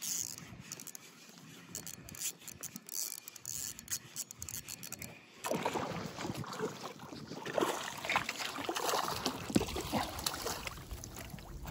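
Spinning reel being wound and handled, with small clicks and rubbing, then from about halfway, irregular water splashing as a hooked sea trout thrashes and is scooped into a landing net beside a kayak.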